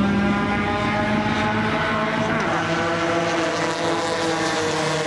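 Several race cars' engines idling together on a grid, a steady, even drone.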